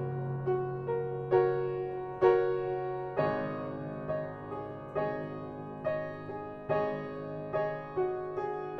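Background music: slow piano playing held chords and single notes at a steady pulse of about one note a second, with a change of chord about three seconds in.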